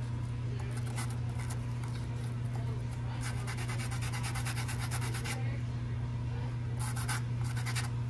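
Bicycle disc brake pad rubbed back and forth on 220-grit wet-and-dry sandpaper, making a fast, scratchy scraping in two spells, the longer one a few seconds in. The sanding takes the glazed, shiny surface off the pad, which is a sign of contamination.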